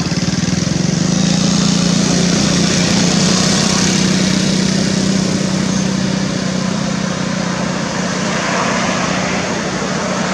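A motor engine running steadily nearby, a loud, even low drone with no change in pitch.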